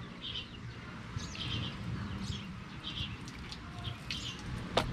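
A bird chirping repeatedly, short high calls about once a second, with one sharp click near the end.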